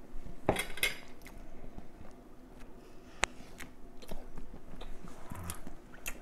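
Close-up eating sounds from a man eating a plate of neck bones and cornbread: chewing, with light clinks against the plate and one sharp click about three seconds in.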